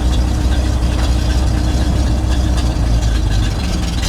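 Engine of a 1966 Chevrolet C60 grain truck running steadily at idle.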